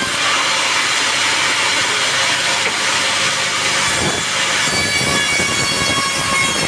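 Sawmill band saw cutting through a teak log: a steady, loud hiss of the blade in the wood, with thin high whining tones above it.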